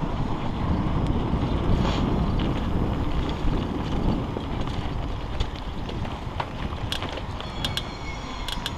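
Wind buffeting an action camera's microphone while a mountain bike rolls along a dirt trail, with steady tyre rumble and scattered sharp clicks and rattles from the bike, several close together near the end.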